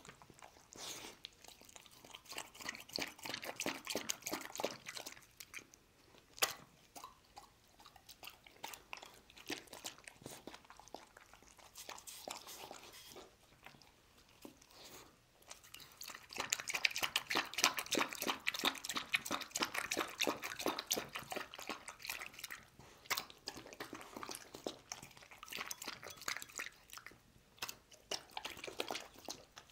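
Dog eating chicken soup from a bowl: quick wet lapping of the broth mixed with chewing and crunching on the chicken pieces, busiest a little past halfway.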